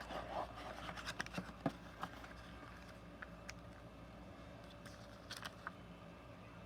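Quiet room with a low steady hum and a few faint, light clicks and rustles, mostly in the first two seconds and again about five seconds in.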